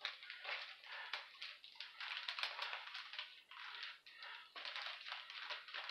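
Clear plastic sleeve crinkling and rustling in irregular bursts as a cardstock art print and its cardboard backer are handled and slid back into it.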